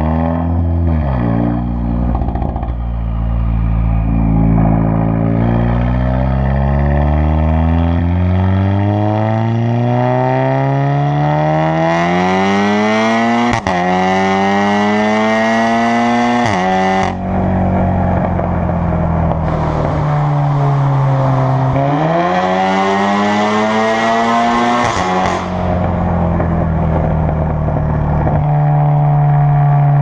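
Volkswagen Golf MK7 R's turbocharged 2.0-litre four-cylinder through an ARMYTRIX valvetronic exhaust, accelerating. The pitch climbs steadily for about ten seconds, drops sharply at two quick gear changes around the middle, falls away, rises again, and settles to a steady drone near the end.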